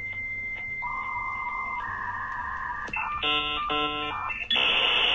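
Dial-up modem connecting: a steady high tone, then lower steady tones, a second or so of rapidly switching chirps, and about four and a half seconds in a loud hiss of static as the modems negotiate the connection.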